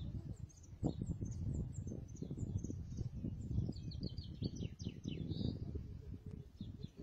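Small birds chirping in short high calls, with a quick run of chirps about four to five seconds in. Underneath is a louder, uneven low rumble on the microphone.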